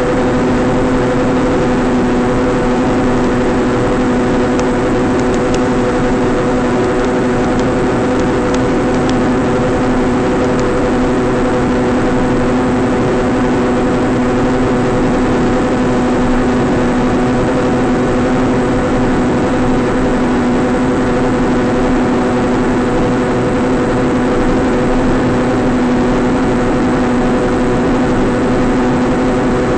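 Electric motor and propeller of a KPQRC B2 Ghost foam flying wing running at a steady throttle in flight, a steady whine with hiss, picked up by the onboard camera's microphone over the analog video link.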